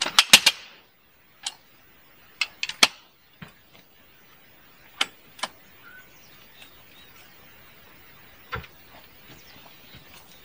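A series of sharp clicks and knocks from hard gear being handled: a quick rattle of clicks at the start, then single and paired clicks every second or two.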